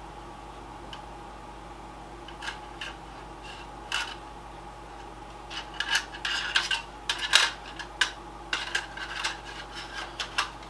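Small metal and plastic computer parts being handled, clicking and clinking against each other: a few scattered clicks at first, then a busy run of clatter from about halfway through.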